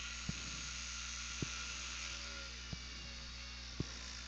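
Electric dental handpiece with a bur spinning steadily as it cuts into a 3D-printed tooth model: a low hum with a faint high whine. Four light clicks come about a second apart.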